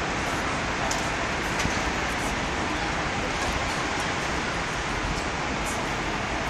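Steady background din of a busy exhibition hall, an even wash of noise with faint distant voices and a few light clicks.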